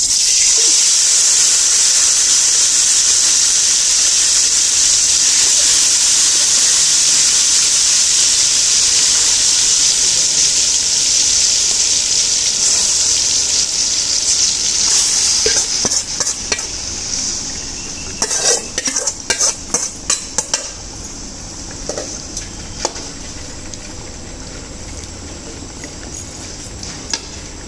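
Masala-coated fish pieces dropped into hot oil in an aluminium kadai: a loud frying sizzle that starts suddenly and stays strong for about fifteen seconds before easing off. Later, a metal slotted ladle clatters and scrapes against the bowl and pan as the rest of the fish is tipped in and stirred.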